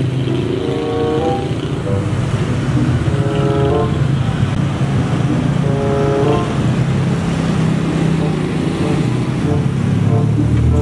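A car engine running with a steady low hum. Light background music plays short runs of notes over it.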